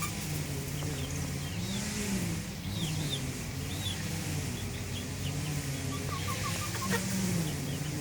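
A small engine drones steadily in the background, its pitch rising and falling a little, with many short high bird chirps over it and a quick run of about five short calls around six seconds in.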